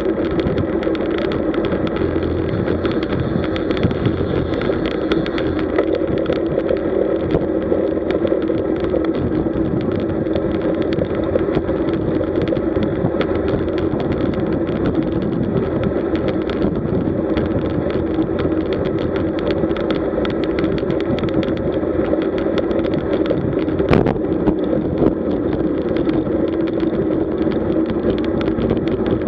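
Steady wind rush and tyre noise from a road bicycle riding at about 45 km/h, with one sharp click near the end.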